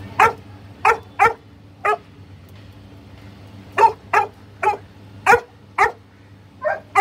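A dog barking: about ten short, sharp, fairly high barks in uneven bursts of two or three.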